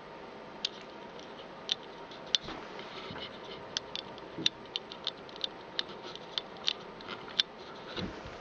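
Scattered sharp little clicks and ticks at irregular intervals from a half-face respirator with plastic filter cartridges being held and shifted in the hand, over a steady faint room hiss.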